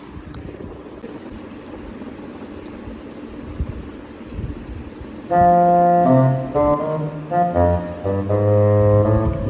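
Low steady background noise with faint high crackles. About five seconds in, loud instrumental music starts, a melody of held notes that runs to the end.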